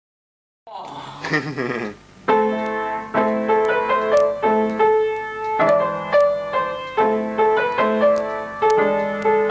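Music starting about a second in: a short swell, then keyboard chords struck in a steady repeating pattern, each note decaying before the next.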